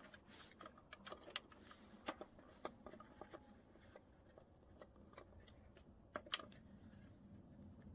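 Faint, irregular small metallic clicks and taps from hands and a tool working the throttle linkage on a walking tractor's engine, with a louder pair of clicks about six seconds in.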